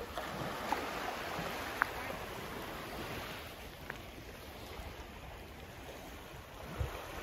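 Small waves lapping and washing against a stone quay and slipway, a steady watery hiss with a few brief high plinks. Wind buffets the microphone near the end.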